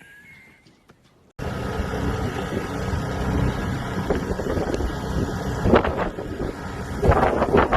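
Snowstorm wind blowing hard against the microphone, with a low steady hum underneath. It starts suddenly about a second and a half in and surges in stronger gusts near the end.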